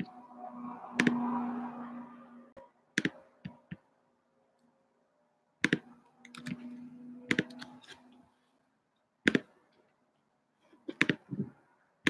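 Irregular sharp clicks and taps of someone typing and clicking at a computer, a few at a time with pauses between. A low hum comes and goes twice beneath them.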